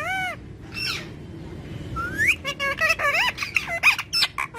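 Green ring-necked parakeet making squeaky whistled calls: a couple of arched notes at first, a pause, then a rising whistle and a quick run of chirps and squeaks.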